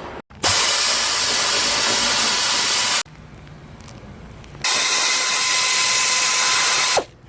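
Power tool running in two steady bursts of two to three seconds each, a hiss-like noise that starts and stops abruptly; the second burst carries a steady whine.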